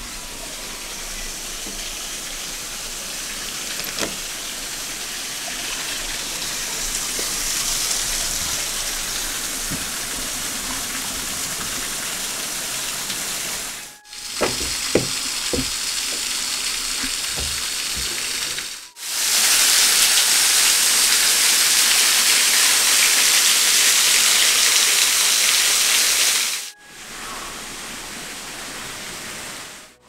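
Steady rush of falling water from a small waterfall spilling over a stone wall, heard in several shots. It is moderate at first, has a few knocks about halfway through, is much louder for several seconds after that, then drops off near the end.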